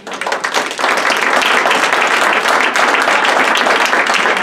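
Audience applauding, building up over about the first second and then holding steady.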